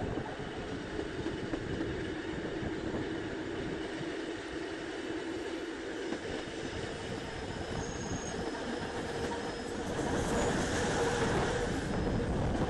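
Rhaetian Railway passenger train running on a curve: a steady rumble of wheels on rail with a few faint, brief high squeals from the wheels. It grows louder about ten seconds in.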